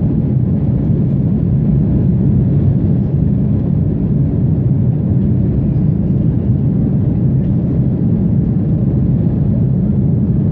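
Steady low cabin drone inside a climbing Embraer 190 airliner: its two GE CF34-10E turbofans and the air rushing past the fuselage, heard from a seat over the wing. The noise holds even throughout.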